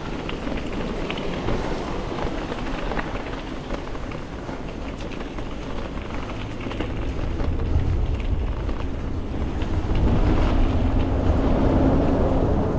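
Wind buffeting the microphone over the rumble of a moving e-bike, getting louder from about the middle and loudest near the end.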